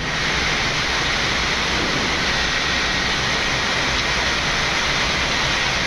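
Boeing 787 flight deck during the takeoff roll: a steady rushing noise from the Rolls-Royce Trent 1000 engines at takeoff thrust and the air rushing past as the jet accelerates toward rotation.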